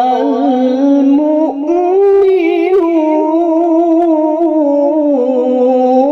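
A man's voice in melodic Quran recitation (tajwid), drawing out one long ornamented line with a slight waver, with a brief dip about a second and a half in before the line lifts a little and carries on.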